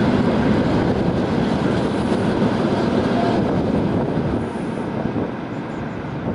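Freight train of tank cars and boxcars rolling past, steel wheels running on the rails in a steady, dense rumble that eases a little about four seconds in.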